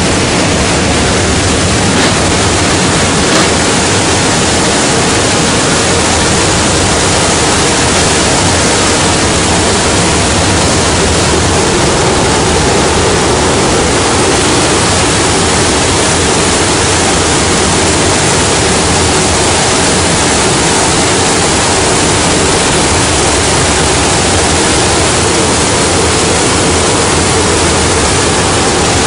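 Steady, loud roar of engines and rushing air inside a military transport aircraft's cabin with the jump door open, with no change throughout.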